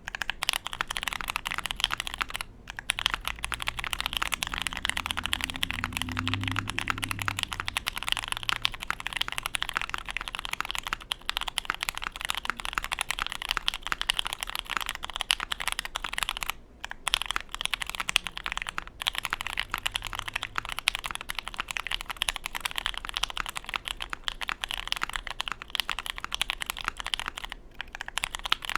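Continuous fast typing on a custom Bakeneko mechanical keyboard with JWK Pewter linear switches, an FR4 half plate and ABS keycaps, with a few brief pauses. Masking tape covers the underside of the PCB, which the builder finds makes the keystrokes deeper and thockier.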